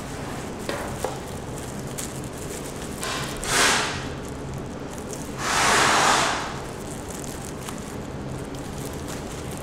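Clear plastic wrap around a spiral-bound booklet crinkling as the booklet is handled. It rustles louder twice, about three and a half and six seconds in, the second time longer, over a low steady hum.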